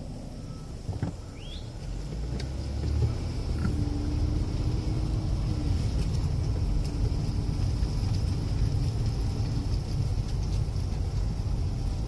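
Steady low road and engine rumble heard inside a moving car's cabin, growing louder from about two seconds in. A short knock sounds about a second in.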